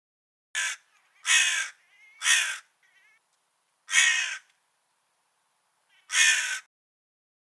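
Crow cawing: five harsh caws in an uneven series, the first one short, with a longer gap before the last.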